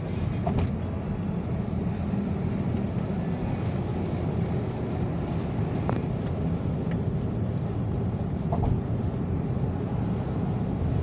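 Steady road and engine noise of a motor vehicle travelling at highway speed, a continuous low rumble with a few faint clicks.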